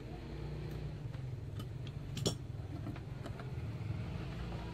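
Scattered light clicks and taps, one sharper click about two seconds in, over a low steady hum.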